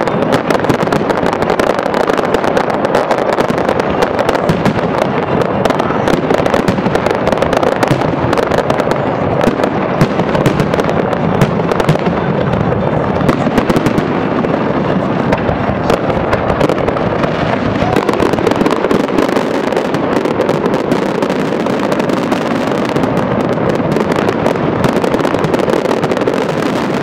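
Aerial fireworks display with shells bursting in a dense, unbroken barrage, many reports overlapping into a continuous crackle.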